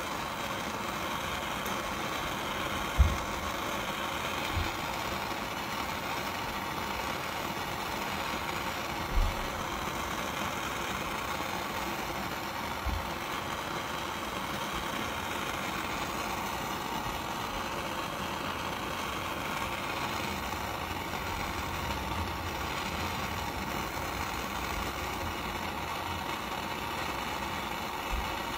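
Steady hiss of a jeweler's gas soldering torch flame playing on a piece to flow hard solder into its joints. A few dull low bumps, the loudest about three seconds in.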